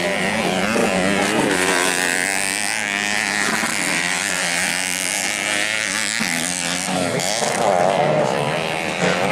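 Modified underbone race motorcycles running on a dirt track, their engines revving up and down with overlapping rising and falling pitch as the bikes accelerate and shift.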